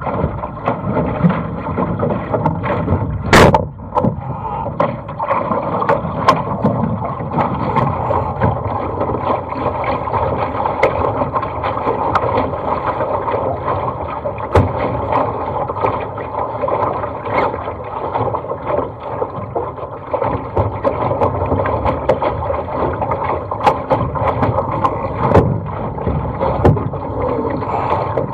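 Water rushing and splashing along the hull of a small sailing dinghy under way, with frequent sharp slaps of waves and spray; the loudest slap comes about three and a half seconds in.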